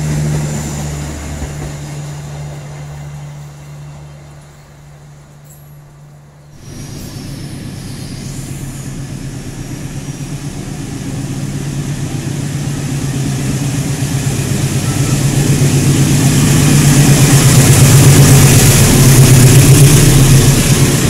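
A passenger train's coaches run past and fade away with a steady low hum. Then a freight train of tank wagons rolls past close by on the next station track, its low hum and wheel noise growing loud and steady.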